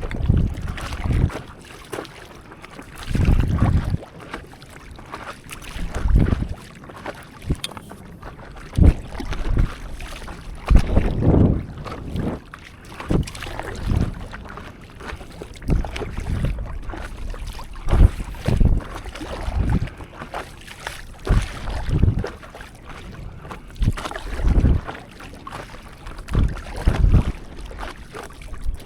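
Paddling a stand-up paddleboard on the sea: water sloshing and splashing around the board and paddle, with wind buffeting the microphone in low rumbling gusts every second or two.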